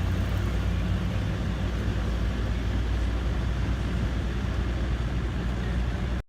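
Mercedes-AMG E63 S twin-turbo V8 running at low revs with a steady deep rumble, easing off slightly, then cutting off suddenly near the end.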